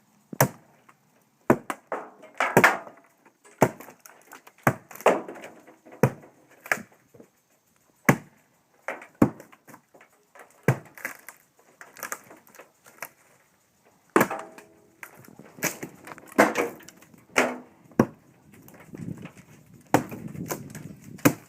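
Wood cracking and knocking: irregular sharp snaps and knocks with some crumbling, as rotted log wood is broken away.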